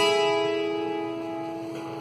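Twelve-string acoustic guitar (docerola) playing a requinto lead: a last plucked note struck right at the start and left to ring, fading slowly.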